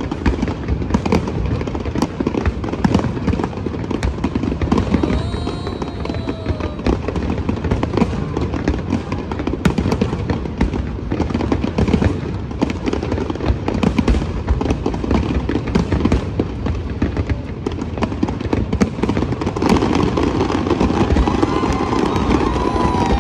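Aerial fireworks shells bursting in a dense, continuous barrage of bangs and crackles, many a second.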